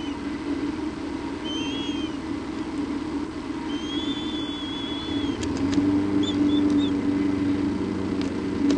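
A steady low hum, like a motor running, that grows louder about five and a half seconds in, with short whistled bird chirps over it and a few faint clicks.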